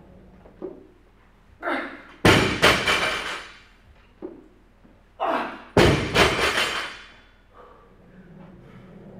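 A loaded barbell with bumper plates, about 105 kg, dropped onto the rubber gym floor twice, about three and a half seconds apart. Each landing is a loud slam that rings and rattles for about a second, and a short breath of effort comes just before each.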